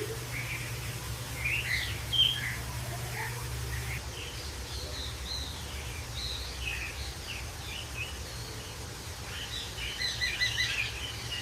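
Bird chirping: short high tweets scattered throughout, with a quick flurry of chirps near the end, over a steady low hum.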